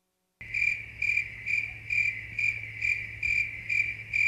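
Cricket chirping, an even run of short chirps about two a second over a low steady hum, starting half a second in after dead silence.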